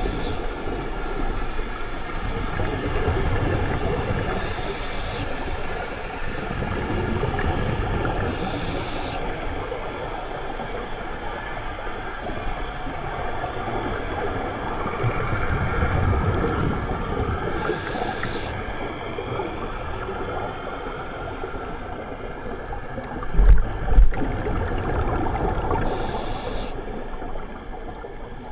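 Underwater sound through a camera housing during a scuba dive: a steady watery wash with short hissing bursts of regulator bubbles four times, and two dull thumps close together near the end.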